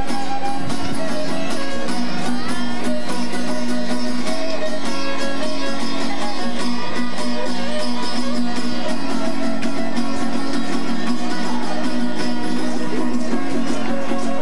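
Lively string-band music for the dance: fast, even strumming of plucked strings under a moving melody line.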